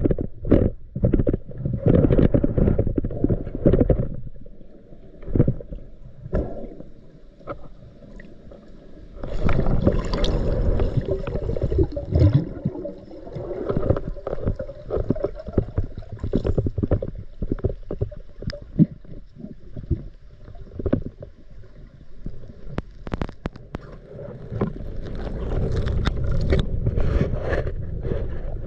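Muffled water noise heard through an underwater camera: gurgling and sloshing that comes in loud stretches, with many small knocks and scrapes.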